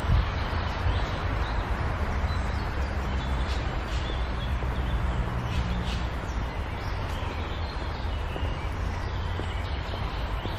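Steady outdoor rumble with small birds chirping faintly now and then among the trees.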